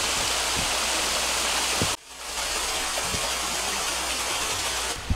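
Water rushing and splashing over rocks in a shallow creek and a small waterfall, a steady hiss. It cuts off sharply about two seconds in and comes back a moment later, a little quieter.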